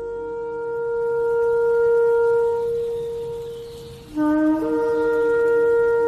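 Shofar blown in long blasts: a held note swells and fades out about four seconds in, then a second blast starts on a brief lower note and breaks up to the main pitch, holding steady.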